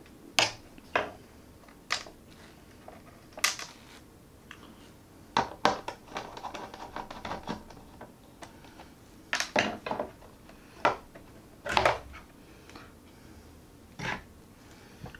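Irregular clicks and knocks from hands and a screwdriver working on an opened iMac's internals, with a run of lighter rattling clicks about halfway through.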